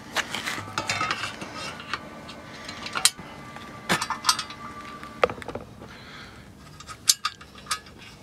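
Steel bolts and nuts clinking and powder-coated steel basket panels knocking as they are handled and bolted together by hand: about half a dozen sharp metallic clicks over a low rustle of handling.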